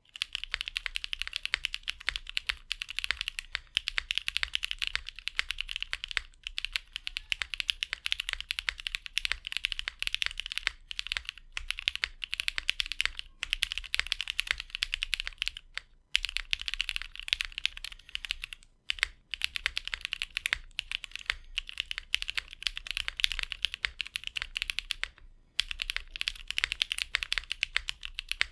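Fast, continuous typing on a custom 60% mechanical keyboard with lubed and filmed linear Cherry MX Black Hyperglide switches with Kailh long-pole stems, an aluminium plate and GMK ABS keycaps, in a gummy O-ring mount. The keystrokes come in dense runs with a few short pauses between bursts.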